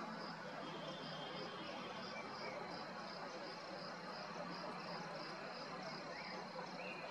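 Night insects, crickets, chirping in a steady rhythm of about three pulses a second over a continuous hiss, with a few brief rising calls near the end.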